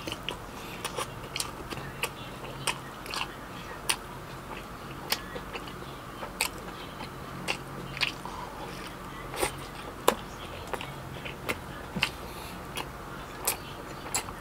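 Close-miked chewing of a soft beef burger: wet mouth clicks and lip smacks at an irregular pace, roughly one or two a second.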